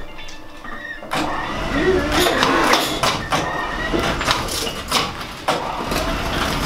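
Electric chain hoist running as it pulls the engine and front subframe out of a Mitsubishi Space Wagon, starting about a second in, with repeated metal clanks and creaks from the assembly as it drags and shifts.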